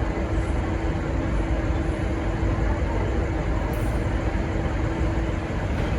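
V/Line N class diesel locomotive N469 running while stationary: a steady low rumble with a thin steady hum above it that cuts off about five seconds in.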